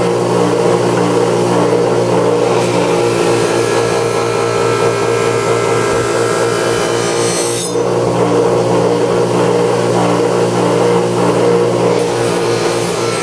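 Electric bench grinder running with a steady motor hum while a high-carbon steel knife blade is ground against its wheel. The hissing, scraping grind comes in about two and a half seconds in, stops suddenly about halfway through, and starts again near the end.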